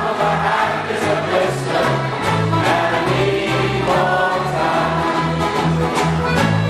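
A group singing a song together over instrumental accompaniment with a stepping bass line.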